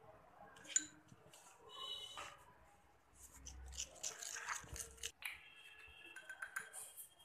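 A spoon stirring and scraping thick tomato sauce in a small dish: faint, irregular scrapes, with a sharp click of the spoon against the dish about five seconds in.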